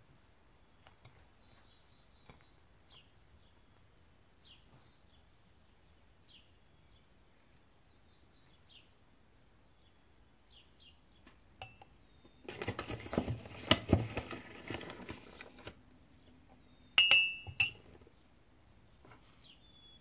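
Faint birds chirping, then about twelve seconds in a few seconds of rustling and handling noise, and near the end a porcelain cup clinking against its saucer with a short ring.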